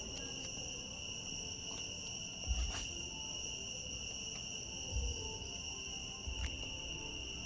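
A steady, high-pitched chorus of insects chirring without a break, with a few soft low thumps now and then.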